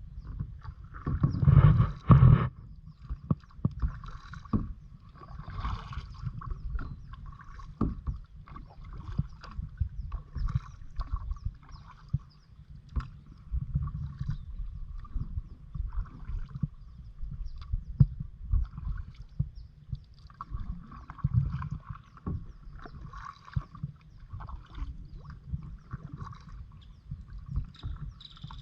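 Kayak being paddled: paddle strokes with water splashing and dripping, and occasional knocks against the hull, over a steady low rumble. The loudest splash comes about two seconds in.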